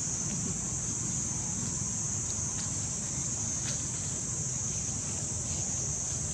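Steady high-pitched insect drone with a low rumble beneath, and a few faint crackles of dry leaves near the middle as the macaques shift on the leaf litter.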